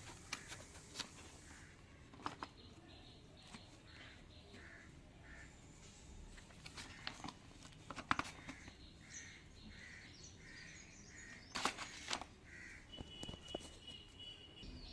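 Scattered clicks and knocks of plastic tripod parts and packaging being handled, the loudest about eight and twelve seconds in. Behind them, a bird calls in two quick runs of short calls, a few calls per second.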